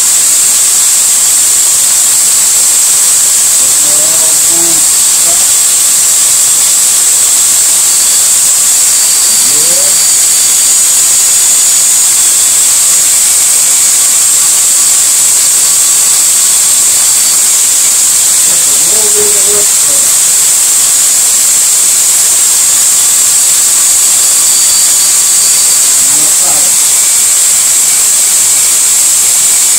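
Electric drill running steadily, spinning an engine valve while carbon is scraped off it: a loud, even high hiss that never lets up.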